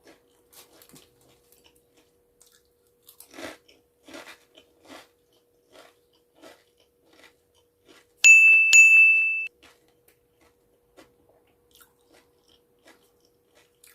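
Close-miked crunching and chewing as bites are taken of lumpizza, a fried spring roll filled with pizza ingredients. About eight seconds in, a loud, bright ding sounds twice in quick succession and rings for about a second.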